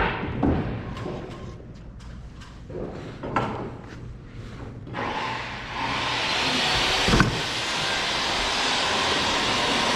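Light knocks and clicks of wooden trim pieces being handled, then about five seconds in a machine starts and runs with a steady hissing noise and a low hum, with one sharp click partway through.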